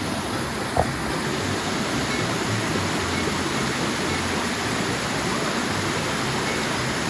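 Small waterfall pouring steadily into a spring-fed pool, with one short knock about a second in.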